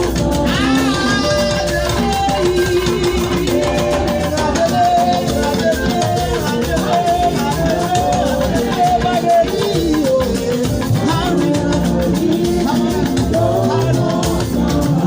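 A church choir singing with a live band of guitar and drum kit.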